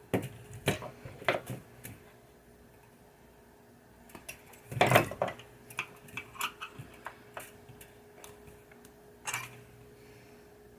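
Scattered small metallic clicks and clinks of hand tools and wiring being handled on a pinball playfield, with a louder clatter about five seconds in.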